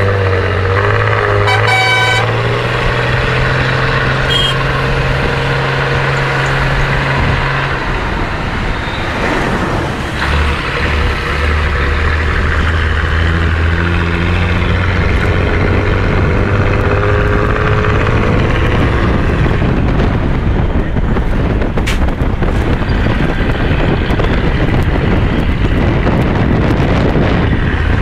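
Steady loud engine drone and road noise of a moving vehicle in city traffic. A vehicle horn toots briefly about two seconds in, and the engine note drops about eight seconds in.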